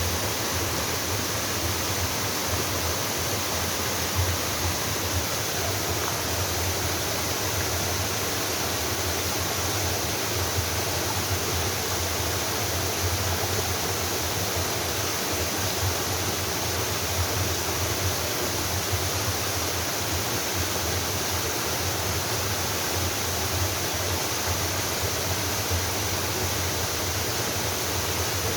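Mountain-valley waterfall: water pouring and splashing in a steady, unbroken rush.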